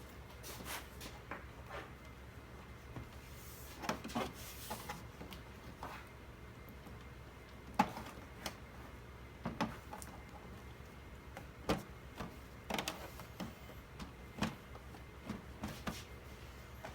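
Irregular clicks and light knocks of a screwdriver and screws against the plastic back cover of an LCD TV as its screws are taken out, over a faint low steady hum.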